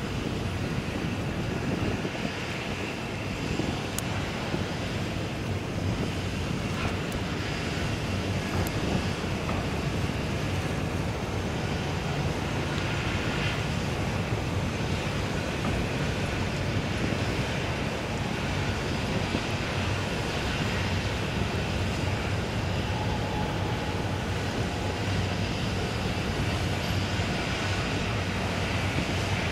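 Steady low drone of ship machinery, a deep hum under an even hiss with no break.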